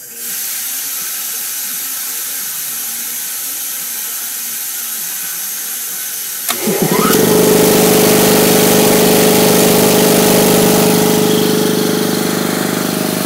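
Steady hiss of compressed air escaping. About six and a half seconds in, the Ingersoll Rand air compressor's motor and pump kick in as the pressure drops: a brief rising whine, then a loud, steady run.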